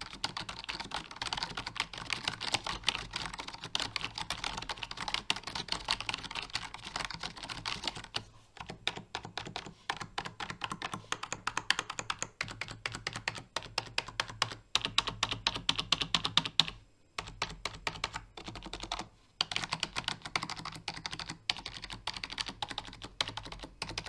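Typing on a Razer Cynosa V2 membrane (rubber-dome) keyboard: a dense clatter of key presses, quieter than a mechanical keyboard but not silent, with a few brief pauses.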